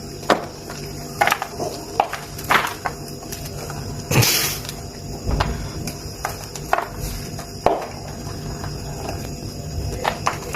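Reformed gym chalk (pressed calcium carbonate) crumbled by hand: irregular dry crunches and snaps a second or so apart, with one longer crumbling burst about four seconds in.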